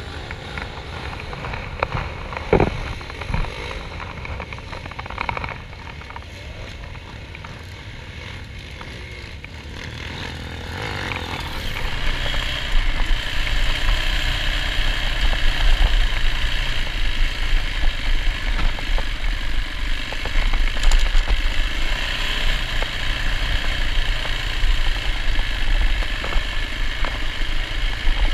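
Yamaha dirt bike engine, quieter at first with a few sharp clicks, then louder from about twelve seconds in as the bike runs along a gravel track under throttle.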